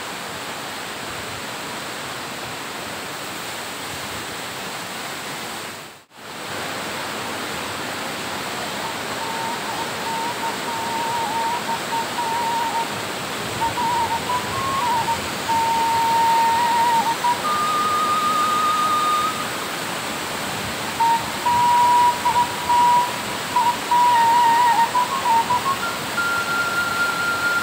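Steady rushing of a waterfall, dropping out for an instant about six seconds in. From about nine seconds a simple melody of held high notes plays over it.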